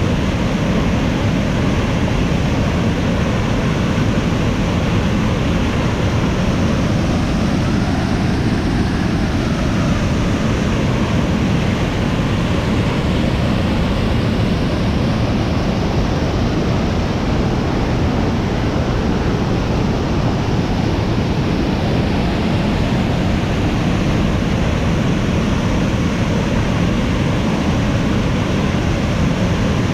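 Waterfall pouring over a rock ledge into a pool below: a loud, steady rush of water.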